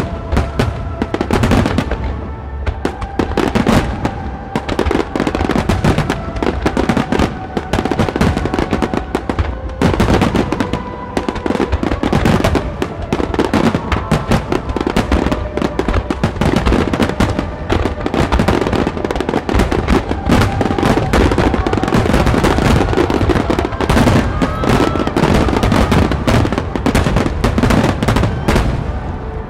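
A fireworks display going off continuously, many shells bursting in rapid, overlapping bangs, with music playing underneath.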